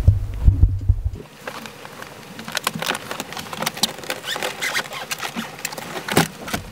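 Handling thumps on the camera microphone as the camera is grabbed and moved, then a run of light scratchy rustles and small clicks as things are moved about by hand on the floor.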